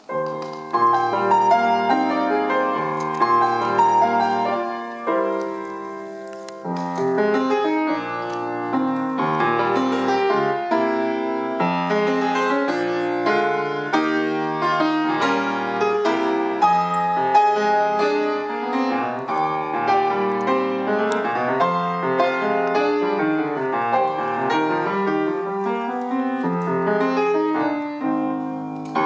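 Solo grand piano playing Argentine folk music: chords and melody in continuous, lively playing, with a brief drop in loudness about six seconds in.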